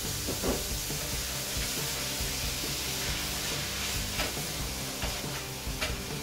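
Zucchini noodles sizzling in a pan of hot olive oil and hamburger grease as they are tossed in and stirred, with a few clicks of metal tongs against the pan.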